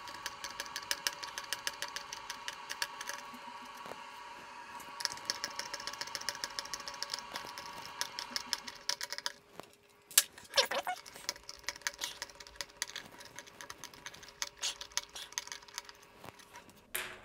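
Precision screwdriver turning out the small screws that hold a smart speaker's circuit board, making rapid, even ticking in two long runs. About ten seconds in there is one sharp clink with a brief ring, like a small metal part set down, followed by sparser clicks.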